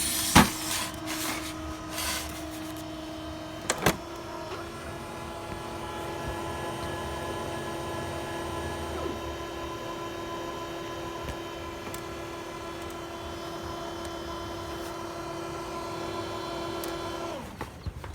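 HP Color LaserJet M182/M183-series laser printer running its internal motors: a few mechanical clicks near the start and about four seconds in, then a steady hum that cuts off suddenly about a second before the end.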